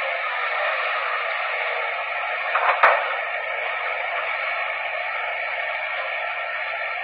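Kobelco SK200 excavator's diesel engine running steadily, heard as a thin, tinny hiss with no deep rumble, with one sharp knock about three seconds in.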